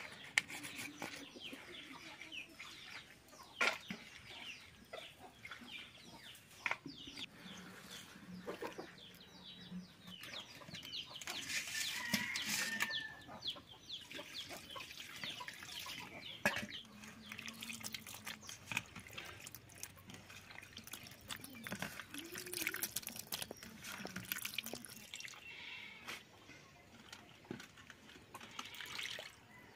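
Small fish being handled and washed by hand in a steel plate: scattered clicks and splashes as water is poured over them from a steel pail and they are rubbed clean. Birds call now and then in the background.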